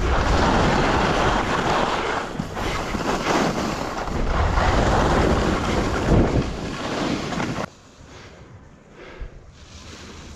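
Wind rushing over the microphone and skis hissing over snow during a downhill run: a loud, steady rushing noise that cuts off suddenly about three-quarters of the way through, leaving a much quieter background.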